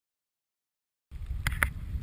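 Digital silence, then about a second in a GoPro's outdoor sound cuts in: a low rumble of wind on the microphone, with two sharp clicks in quick succession.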